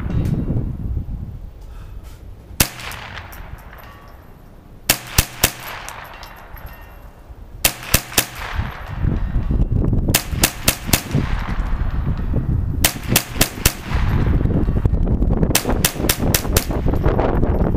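Ruger 10/22 semi-automatic .22 LR rifle firing in quick strings of three to five shots a couple of seconds apart, about twenty sharp cracks in all, each followed by a short echo. A steady low rumble grows louder from about halfway through.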